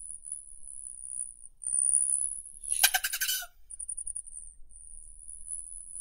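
Rufous hummingbird giving a brief buzzy, rattling call about three seconds in, followed by a quick run of high ticks. A thin, high, steady whine runs under it and swells for a moment before the call.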